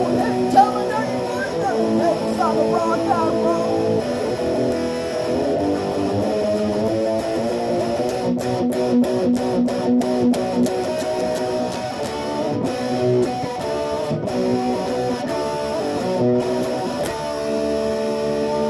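Rock and roll music led by electric guitar, playing on steadily.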